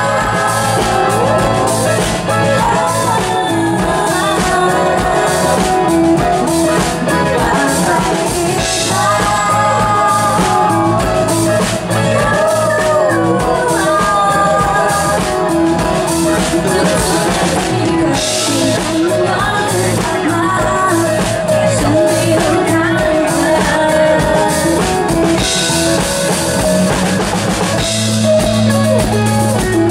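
Live band music with a woman singing lead while playing keyboard, backed by the band.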